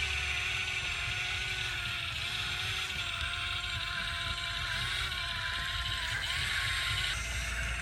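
YIGONG YG258C excavator running, its engine's low rumble under a whine that wavers slightly in pitch and a steady hiss.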